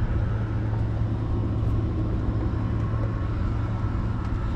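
Boat engine idling: a steady low hum with some noisy rush over it.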